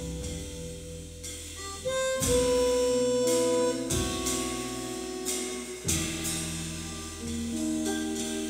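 Harmonica played cupped against a handheld microphone, holding long notes in a jazz tune, with guitar, double bass and drums behind it. Strong new notes come in about two, four and six seconds in.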